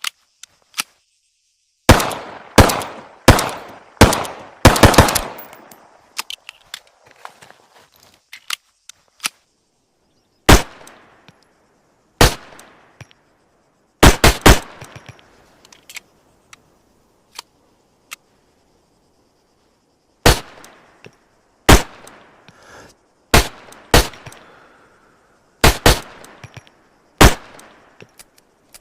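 Colt M1911 .45 ACP pistol firing: sharp, loud shots, some single and some in quick strings of two or three, each with a short echoing tail. A fast run of shots comes about two seconds in.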